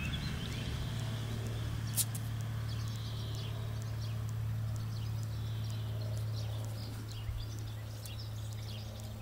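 Outdoor ambience: a steady low hum with small birds chirping here and there, and a single sharp click about two seconds in.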